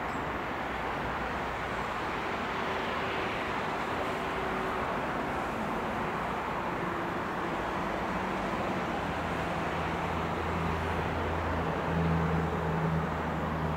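Steady road traffic noise, with a low engine hum that swells from about eight seconds in and is loudest near the end.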